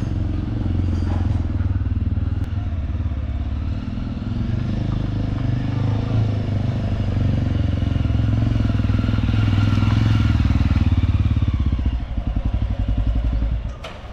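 Jawa 42 motorcycle's single-cylinder engine running steadily while the bike is ridden. About twelve seconds in it breaks into an uneven putter as the bike slows, and it drops away just before the end.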